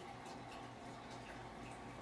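Quiet room tone: a faint steady hum with a few small clicks.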